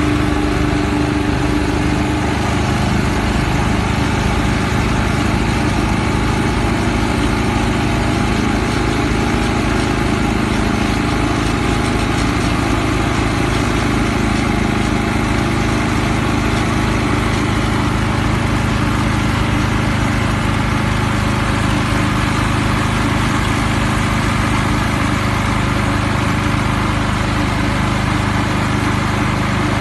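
Honda two-stage snowblower's gas engine running steadily while it clears and throws deep snow.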